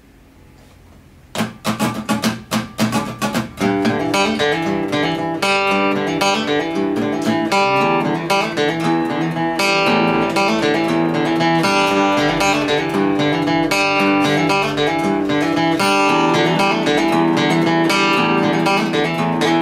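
Acoustic guitar played solo: a few separate strums starting about a second and a half in, then a steady, flowing pattern of plucked chords.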